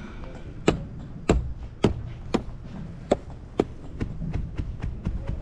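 A short-handled sledgehammer driving nails through artificial turf into the ground along its edge. There are about six sharp blows, roughly two a second, then a few lighter taps near the end.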